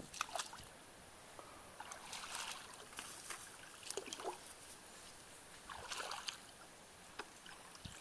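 Bare feet wading through shallow muddy water, making faint, uneven splashes and sloshes every second or two.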